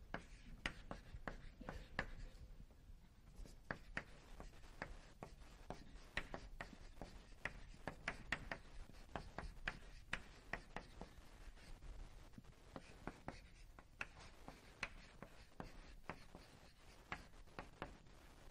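Faint handwriting on a writing surface: a long run of irregular sharp taps and short strokes as the lecturer writes and draws.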